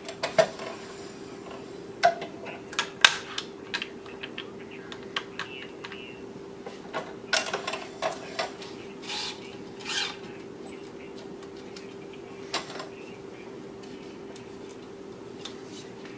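Scattered sharp clicks and short rasping rubs as string is handled, pulled through the frame and clamped on a tennis racquet stringing machine, over a steady hum.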